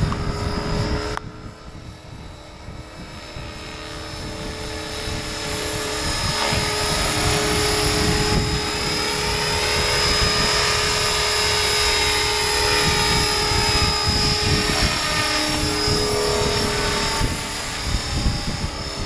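Electric RC scale helicopter (Align T-Rex 500 Pro mechanics in an MD500E fuselage) in flight: a steady motor and gear whine with the whirr of the rotors. The sound drops abruptly about a second in, grows louder as the helicopter comes close, then fades slightly near the end.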